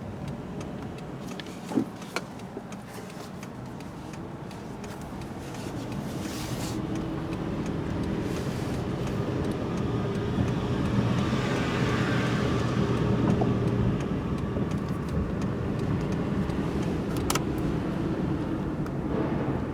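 A car's engine running with road noise, with a steady hum that grows louder about six seconds in and then holds, and a few faint clicks.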